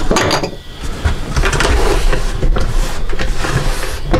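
Snap-on lid of a plastic fermenting bucket being pried off around its rim: irregular plastic creaking and scraping, with a knock at the start.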